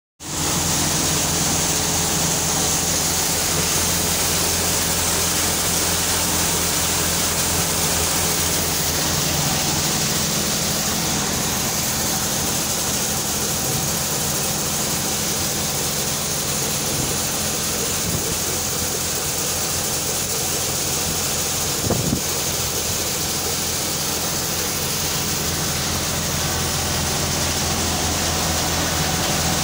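Multicrop thresher (mini combine) running steadily while threshing soybeans: a constant low mechanical drone with a rushing hiss over it, and a single short knock about two-thirds of the way through.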